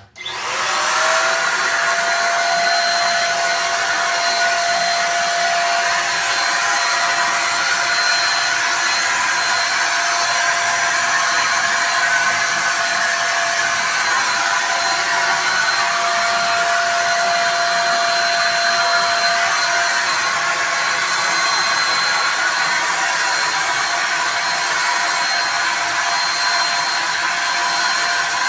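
Corded INGCO electric paint spray gun switched on, its motor spinning up with a brief rising whine, then running steadily at a constant pitch as it sprays.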